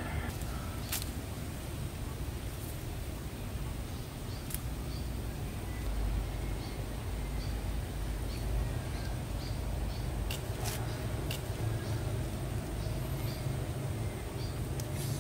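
Steady low rumble with a few sharp clicks scattered through it and faint, short high chirps.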